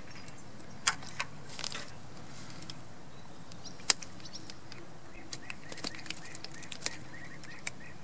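Scattered sharp clicks and light taps as a small chub is handled and unhooked by hand, with one louder click about four seconds in and a quick run of small clicks in the last few seconds, over a steady faint hiss.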